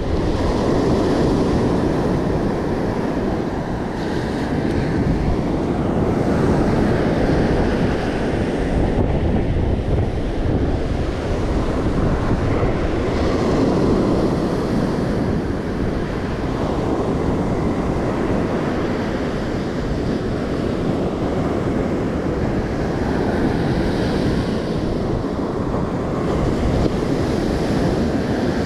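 Ocean surf breaking and washing up the beach in slow, continuous swells, with wind buffeting the microphone.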